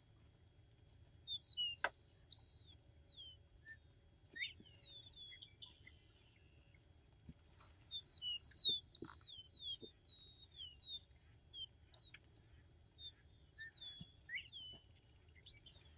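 Small songbirds chirping in short bursts of quick, high, downward-sweeping notes. The loudest clusters come about two seconds in and again around eight seconds.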